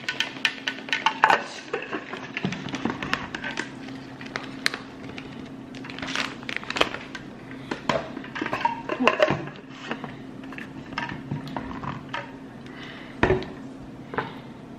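A spoon clinking and scraping against a bowl, with many scattered small knocks and clicks, over a steady low hum.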